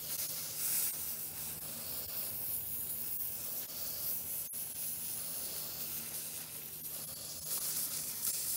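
CryoIQ PRO cryo pen with a D3 tip spraying its cryogen gas onto a skin mass in a steady hiss, its gas cartridge running low.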